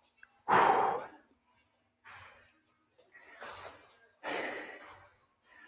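A person breathing out heavily four times, sighs and gasping breaths, the first about half a second in the loudest: out of breath from exertion between exercise sets.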